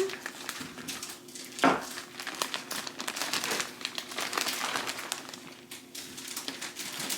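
Plastic packaging of turkey bacon crinkling in irregular crackles as it is opened and handled, with one brief louder sound a little under two seconds in.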